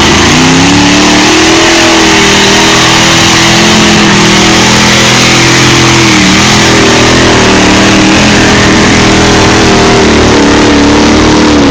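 Truck engine revved hard and held at high revs under load while pulling a broken-down truck out, with a brief dip about six seconds in.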